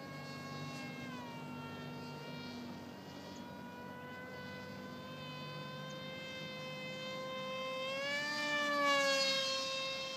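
Brushless electric motor (2826-6, 2200 kV) and 6×5 propeller of an RC plane whining overhead at high throttle. The pitch dips slightly about a second in. Around eight seconds in the whine grows louder and its pitch bends up and back down as the plane passes.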